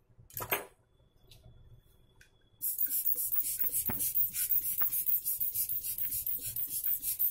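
Rubber air-blower bulb squeezed rapidly to blow dust off a motherboard: a quick run of hissing air puffs, about six a second, starting about two and a half seconds in, after one short puff near the start.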